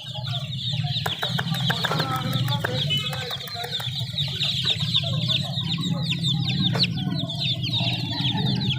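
A brood of baby chicks peeping continuously: many overlapping short, high, downward-falling cheeps. A steady low hum runs underneath, with a few sharp clicks in the first few seconds.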